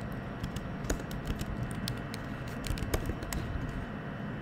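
Computer keyboard typing: irregular, quick key clicks over a steady background noise.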